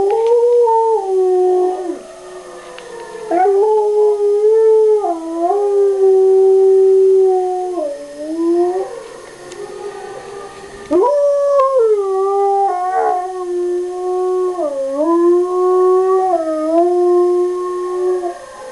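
Alaskan malamute howling along with a recording of wolves howling: three long howls, each mostly holding one pitch with a few dips and slides.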